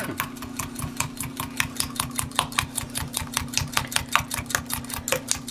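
A fork whisking an egg-and-cream mixture in a glass measuring cup: rapid, even clinks of metal on glass, about seven a second, over a steady low hum.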